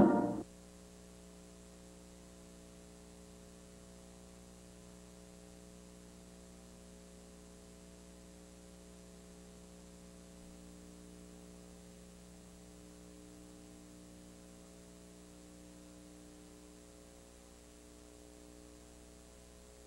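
The national anthem recording cuts off abruptly about half a second in. A faint, steady electrical mains hum with a little static follows: the dead-air carrier after a television station's sign-off.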